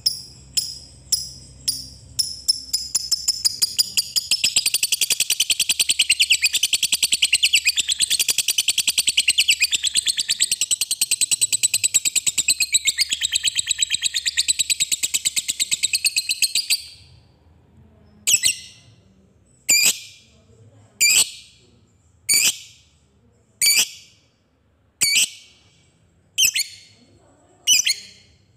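A lovebird giving spaced sharp chirps that quicken into a long, very rapid unbroken chatter lasting about thirteen seconds. This is the 'ngetik' run leading into 'ngekek panjang', the long chatter prized in Indonesian fighter-lovebird contests. The chatter cuts off abruptly, and then come single sharp calls about once every second and a half.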